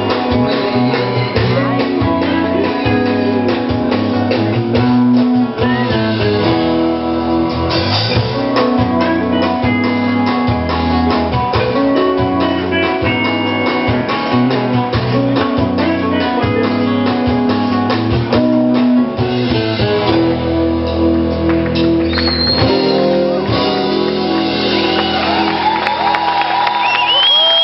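Live rock band playing an instrumental stretch of a song: guitars over bass and drum kit, loud and continuous.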